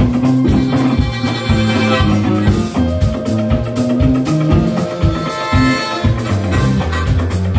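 Live blues band playing without vocals: electric bass line and drum kit keeping a steady beat, with guitars and held lead notes above.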